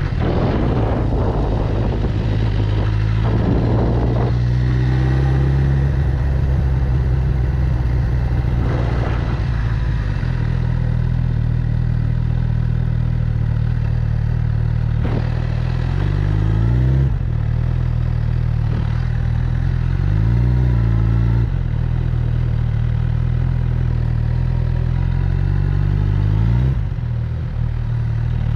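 Suzuki GSX-R1000 K7's inline-four engine running under way, its note holding steady and then rising and dropping a few times as the throttle and gears change, over a steady rush of noise.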